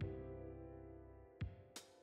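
Background music: sustained tones over a low bass line, with two sharp percussive hits in the second half.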